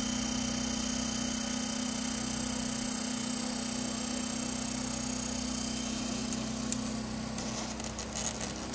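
Egg incubator running with a steady hum and hiss. Near the end come a few light clicks and knocks from its plastic housing being handled.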